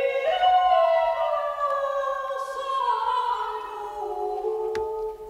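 Operatic soprano voice singing long wordless notes. Several pitches sound together in a layered chord, and the chord slides slowly downward. A single sharp click comes near the end.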